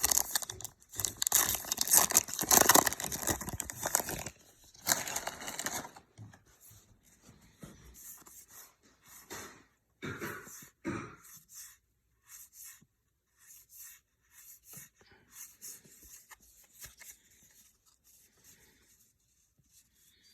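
A trading card pack wrapper being torn open and crinkled for about the first six seconds, followed by quieter, intermittent rustling and handling of the cards.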